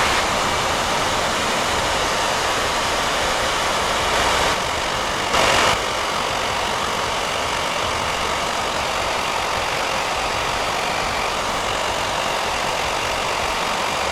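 Electric air blower running steadily, blowing warm air over a vinyl ruler decal to soften it and settle it onto the rod. It gets briefly louder twice, about four and five and a half seconds in.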